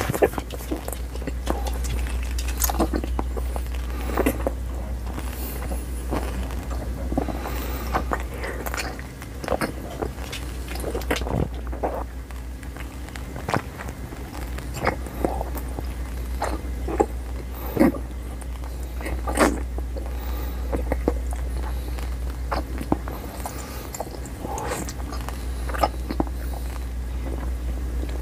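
A large mouthful of Xylitol chewing gum chewed close to a clip-on microphone: irregular wet clicks and smacks over a steady low hum.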